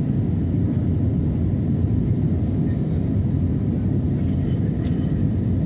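Steady low roar of an airliner in flight, heard from inside the cabin.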